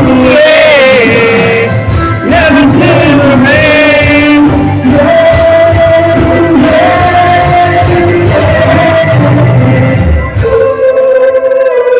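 A sung pop ballad over full band backing. About ten and a half seconds in, the low backing drops away, leaving the voice over lighter accompaniment.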